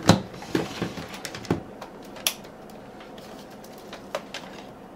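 Clicks and knocks of a telephone cord and its plastic modular plug being handled, a quick run of clicks in the first second and a half, then a few scattered ones.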